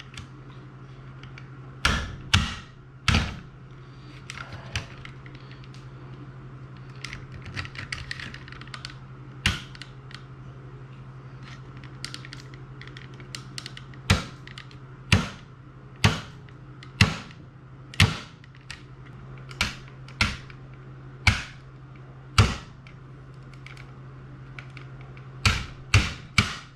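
An 8-ounce hammer tapping a new metal pin into a toy stunt cycle, with about sixteen sharp strikes, each ringing briefly. Three come in the first few seconds, then a long pause, then a steady run about one a second, with a quick double at the end. A steady low hum lies underneath.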